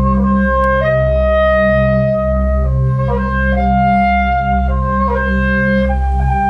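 Slow instrumental music: long held notes on a reedy wind-like instrument, stepping back and forth between a few pitches about once a second, over a steady low drone.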